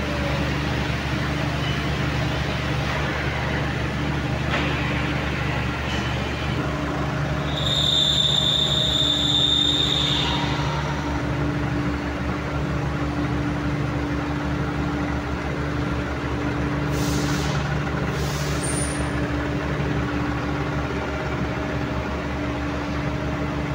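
CNC turning lathe running, with a steady machine hum. A high whine sounds for about three seconds near the middle, and two short hissing bursts come later.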